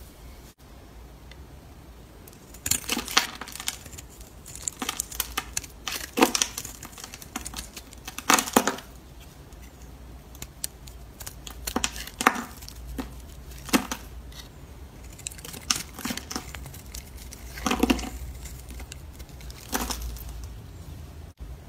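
Snap-off utility-knife blade cutting and shaving a hard bar of soap: crisp crackling cuts every second or two, with flakes and chunks breaking off.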